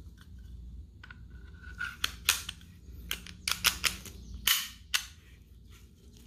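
Sig P365 slide and frame being fitted together by hand: a run of sharp metal clicks and snaps, a few around two seconds in and a quicker cluster between three and five seconds, one of them a slightly longer slide-like scrape.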